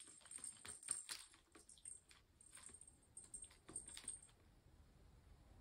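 Faint, irregular clicks and light rattling from a kitten batting and biting at the spring-wire teaser of a plastic ball-track cat toy. A thin, high jingle comes and goes with the taps and stops about four seconds in.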